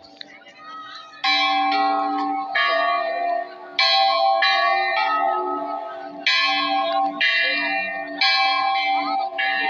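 A metal temple bell struck about eight times, roughly a second apart. Each clang rings on and overlaps the next.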